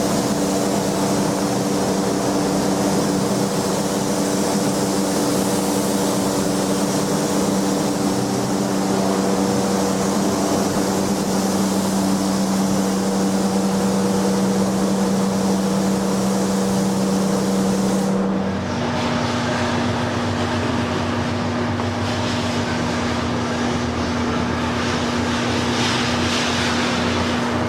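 A motor running steadily, with a hum and a strong high hiss. About 18 seconds in, the hiss drops away and the hum moves to a slightly higher pitch.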